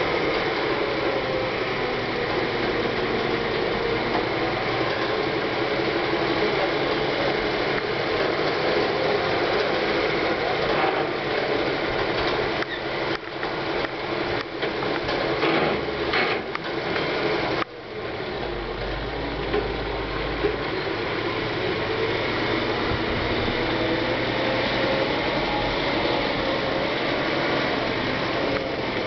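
Engine-driven railway machine running steadily with a mechanical clatter of gears and moving parts, with a stretch of irregular clicks and knocks in the middle and a brief dip in the sound about two-thirds of the way through.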